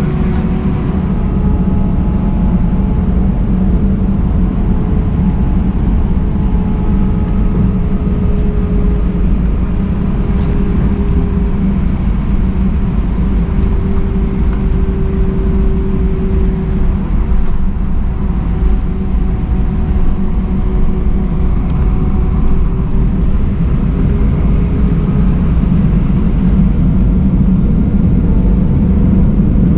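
Airbus A319 cabin noise from a window seat: the jet engines and airflow make a steady rumble, with faint wavering engine tones and a slight rise in level near the end.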